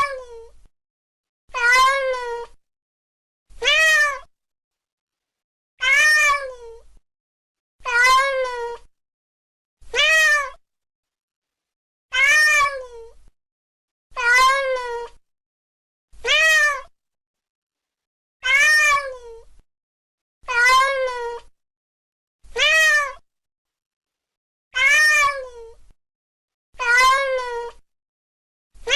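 Domestic cat meowing, one meow about every two seconds, each rising then falling in pitch, with dead silence between. The meows are identical, a single recorded meow played on a loop.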